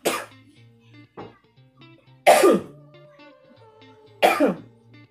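A woman coughing hard three times, about two seconds apart, choking on food she was eating while talking.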